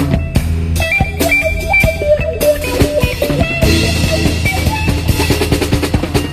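Rock music with electric guitar, bass and a busy drum kit.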